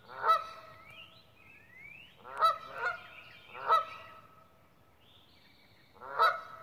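Canada geese honking: five loud honks at uneven gaps, two of them close together in the middle and the last one after a longer pause.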